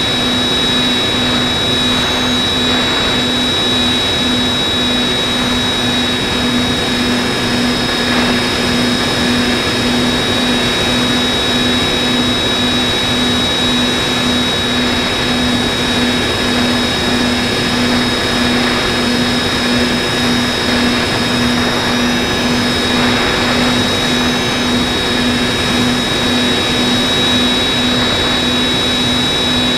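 Electric motor and propeller of an FPV model plane running steadily in flight, recorded aboard: a constant high whine over a low hum that pulses evenly, with air rushing past.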